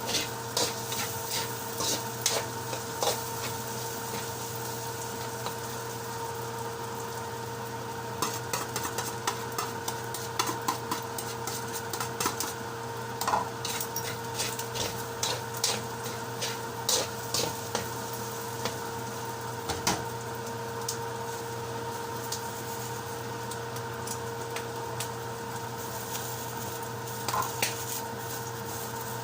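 A cooking utensil stirring vegetables in a sizzling pan, with irregular clicks and scrapes of the utensil against the pan, coming in bursts. A steady hum runs underneath.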